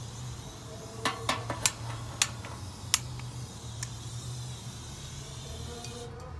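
Small gas blowtorch (weed burner) running with a steady hiss as it lights sawdust and wood chips to smoulder, with a few sharp clicks about one to three seconds in; the hiss cuts off suddenly near the end.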